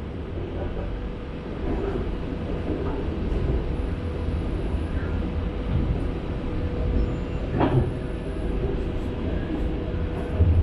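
Shanghai Metro train running, heard from inside the car: a steady low rumble of wheels and running gear on the track with a faint constant hum. A brief sharper rattle comes about eight seconds in.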